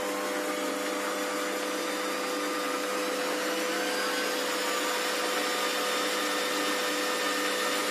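Quantum D250x550 Vario benchtop metal lathe running under power, with its motor and geared feed drive giving a steady whine and hum; some of the whine slowly rises in pitch as the variable speed is turned up.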